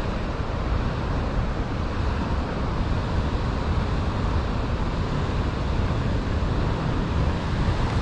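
Fraser River's white water rushing over Overlander Falls: a steady, even rush that holds at one level.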